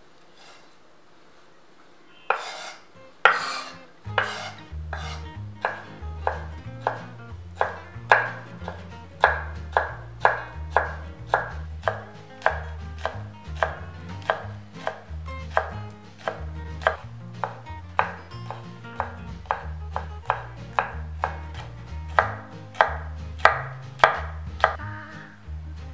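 Chef's knife chopping leafy greens on a wooden cutting board: a steady run of crisp strikes, roughly two a second, starting about two seconds in.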